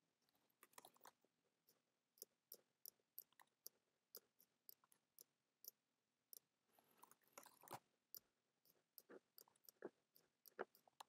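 Faint, irregular clicks of a computer mouse and keyboard, about one or two a second, against near silence.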